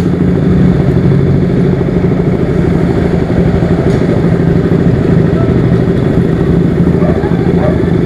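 KTM RC sport bike's single-cylinder engine idling steadily at a standstill, at an even pitch.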